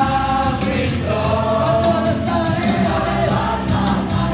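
Live church worship music: a worship team singing into microphones over a guitar-led band, many voices together, with some long held notes.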